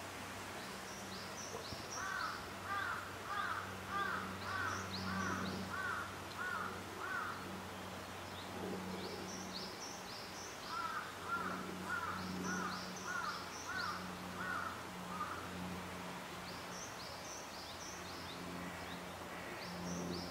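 Wild birds calling outdoors: two runs of about eight evenly repeated calls each, with short clusters of high chirps scattered throughout, over a steady low hum.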